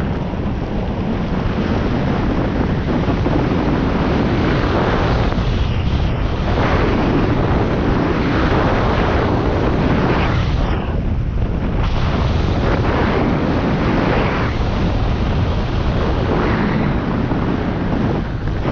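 Wind buffeting the microphone: a loud, steady noise heaviest in the low end, swelling and easing every second or two.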